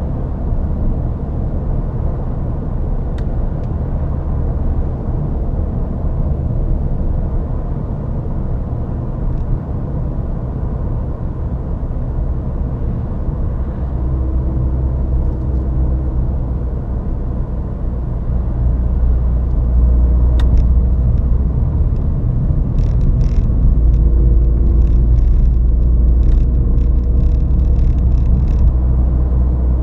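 Ford Fiesta ST on the move: a steady low engine and road rumble that grows louder about two-thirds of the way through, with a scatter of faint ticks near the end.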